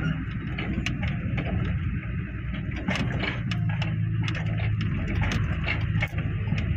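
Truck engine running steadily, with frequent short knocks and rattles over it.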